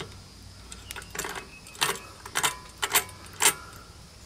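A screwdriver clicks and taps against the ratchet starter clutch of an old Briggs & Stratton engine while its small ball bearings are pushed into place, about five sharp metal clicks in two and a half seconds.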